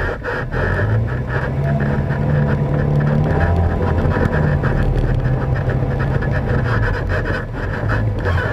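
ATV engine running hard as the quad pulls away and races along a dirt trail, its pitch climbing over the first few seconds, dipping briefly about four seconds in and again near the end.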